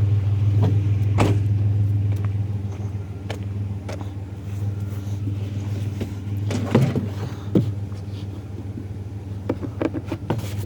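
Vehicle engine running with a steady low hum that eases off over the first few seconds, as the truck slows. A few short clicks and knocks come in the second half.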